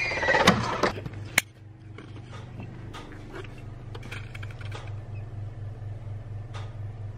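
A brief loud snatch of music cuts off about a second and a half in. It gives way to a steady low, pulsing hum and a few faint, short peeps from baby chicks huddled in a brooder.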